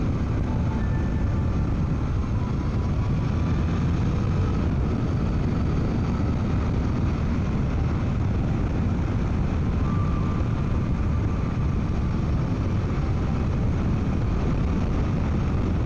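Suzuki V-Strom 800DE's parallel-twin engine running at a steady cruise, mixed with steady wind rush, heard through a microphone inside the rider's helmet.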